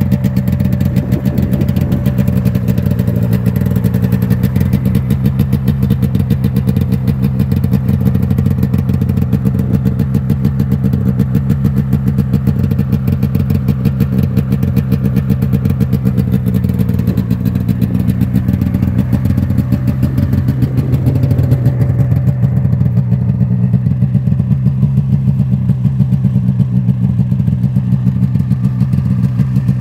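1998 Yamaha V Max 500 XT snowmobile's carbureted twin-cylinder two-stroke engine idling steadily.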